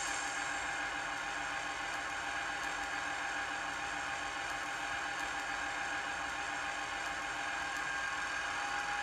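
HO-scale model of the JŽ 666 General Motors diesel locomotive, its ESU sound decoder playing a steady diesel engine idle through the model's small speaker.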